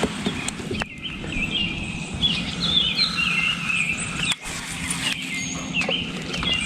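A songbird singing a run of quick warbling, chirping phrases over a steady low rumble of outdoor noise. It cuts off abruptly at the end.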